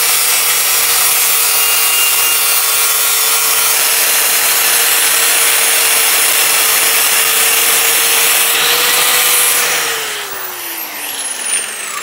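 Angle grinder with a flap disc grinding the rust off a vented brake disc: a steady grinding hiss over the motor's whine. About ten seconds in it is switched off, and the whine falls as the disc spins down.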